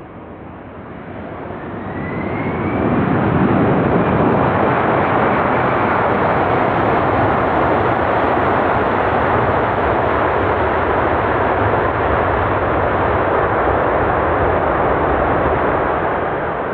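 Boeing 747-400F's jet engines, a loud, dense roar that swells over the first three seconds, with a short rising whine near the start, then holds steady.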